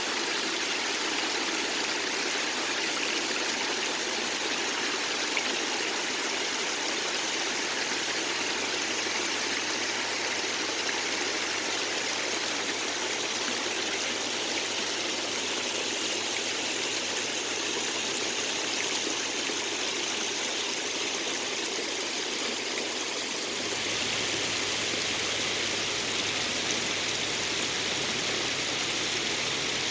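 Spring-fed stream flowing over rocks: a steady rush of water that grows a little fuller and brighter about three-quarters of the way through.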